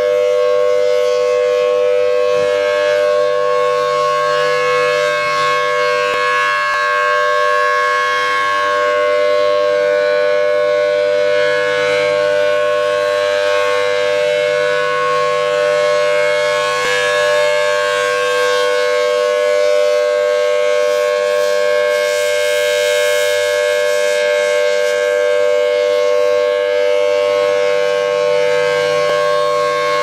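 Federal Signal Thunderbolt 1000T outdoor warning siren sounding its steady alert signal. It holds one unchanging pitch whose loudness swells and fades gently as the rotating horn sweeps around.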